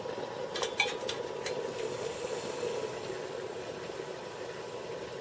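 A steel pot clinks against the metal of a wood-gasifier stove several times in the first second and a half as it is set back down. Under the clinks runs a steady rushing from the freshly boiled water simmering on the fan-forced stove.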